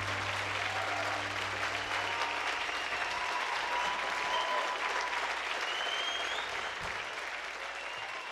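Concert audience applauding and cheering at the end of a song. The applause slowly thins out toward the end.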